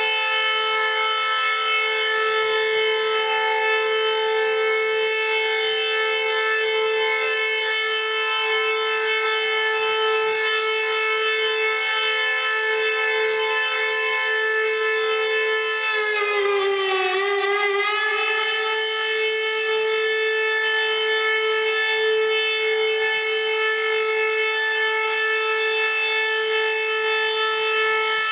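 Civil defense siren sounding one long, steady tone, sounded in remembrance of the Ghetto Uprising. Its pitch sags briefly a little past halfway and comes back up.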